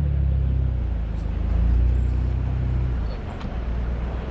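Jeep engine running steadily at low revs, easing slightly near the end.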